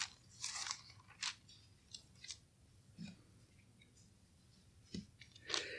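Faint rustling of Bible pages being turned, a few short rustles in the first second and a half, then scattered soft ticks.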